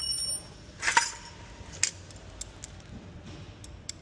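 Small metal tools clinking as they are handled and set down: a short ringing clink at the start, a louder clatter about a second in, then a few light ticks.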